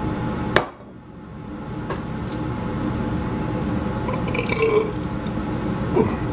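Kitchen handling sounds: a sharp knock about half a second in, as a spice shaker is set down, then a few lighter clicks and a short low sound near the middle, over a steady background hum.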